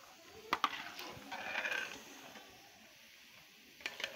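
Metal slotted ladle clinking and scraping against an iron kadhai of frying boondi. There are two sharp clinks about half a second in, a brief scrape a second later, and two more clinks near the end.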